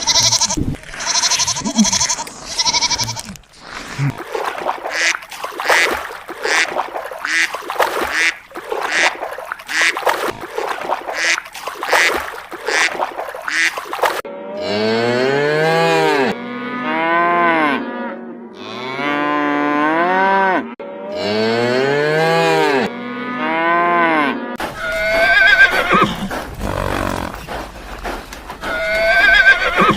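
A run of farm animal calls one after another. In the first half there are many short, rough calls in quick succession. From about halfway come several long calls that rise and fall in pitch, a cow mooing. Near the end there are higher, wavering calls.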